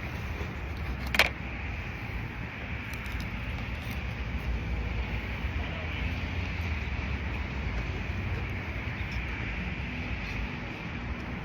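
Steady road traffic noise, a continuous rumble of passing cars. A single sharp click about a second in.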